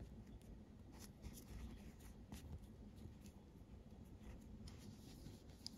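Faint rubbing and a few light ticks of a steel sewing needle being pushed through the tightly knotted end of a nylon paracord collar, to tuck the thread ends out of sight.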